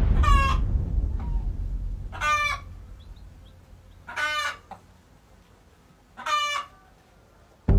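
A hen calling four times, each call a short squawk under half a second long, evenly spaced about two seconds apart.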